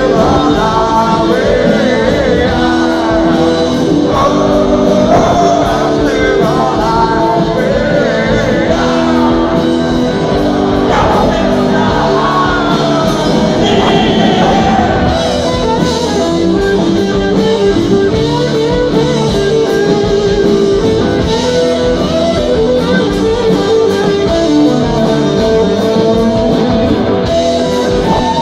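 Live rock band playing at full volume: electric guitar and drums with a singer singing into a microphone, heard from within the audience in a large hall.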